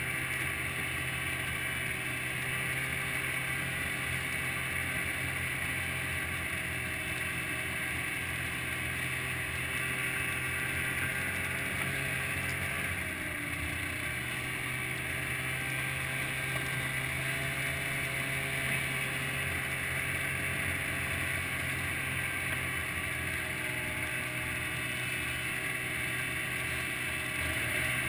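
Small vehicle engine droning steadily at travelling speed, its pitch dipping briefly about halfway through.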